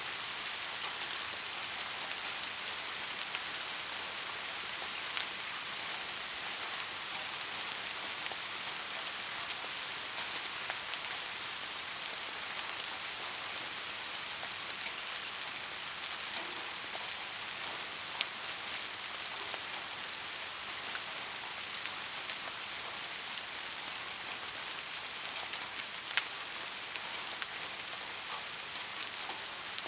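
Steady rain falling on a surface, an even hiss with a few sharper drop ticks now and then.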